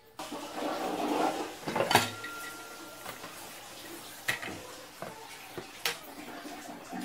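Metal pressure cooker and lid being handled on a wooden bench: scraping, then one sharp knock about two seconds in that leaves a brief metallic ring, followed by a few lighter clicks and clanks.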